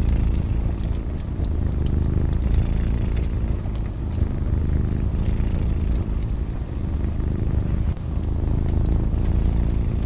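A cat purring in a steady low rumble, with the scattered crackles and pops of a wood fire over it.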